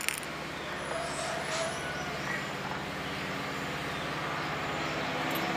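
A short metallic clink at the start, then the steady low hum of an engine running in the background.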